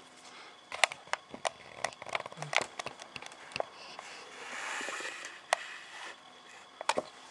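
Trading cards being handled by hand: a run of small clicks and taps, then a soft sliding rustle of card on card about four to six seconds in, and a few more clicks near the end.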